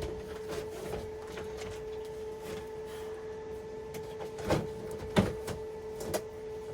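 A steady hum runs throughout, with a few light clicks and knocks of small screws and hatch hardware being handled and fitted, the sharpest past the middle.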